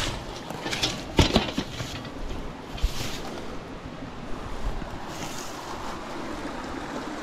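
Steady rush of a shallow creek running over rock ledges, with a few sharp metal knocks and rattles, a pair about a second in and another near three seconds, as a metal deer-stand frame is lifted and carried.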